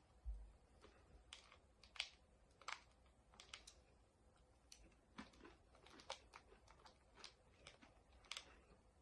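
Faint, irregular small clicks and crunches, a dozen or so, from eating M&M candies with chopsticks.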